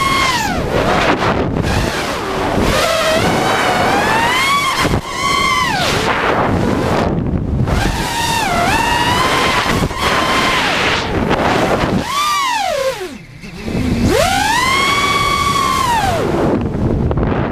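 FPV racing quadcopter's brushless motors whining, the pitch sweeping up and down with the throttle, over a rush of wind past the onboard camera. About thirteen seconds in, the whine falls away briefly and then climbs back up.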